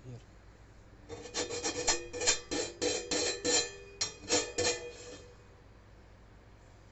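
Cracked cymbal being worked over with quick abrasive strokes, about three a second for some four seconds, the metal ringing with a steady tone under the scraping as its edge is smoothed.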